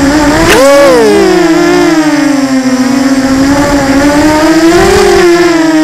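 Small FPV quadcopter's electric motors and propellers whining, loud and close. The pitch jumps up sharply under a burst of throttle about half a second in, sinks back and dips lower, then rises again near the end.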